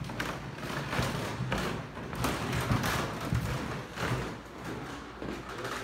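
Footsteps on a wooden floor: irregular thumps and taps.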